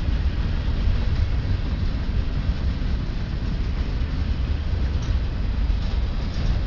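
Freight train rolling past with a steady, continuous low rumble of wheels on rail and no horn sounding.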